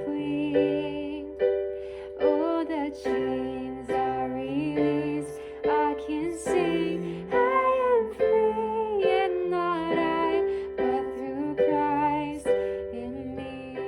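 Background music: a gentle melody over plucked strings, with notes changing about every second.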